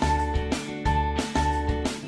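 Upbeat background music: a bright melody line moving in short notes over a regular bass beat.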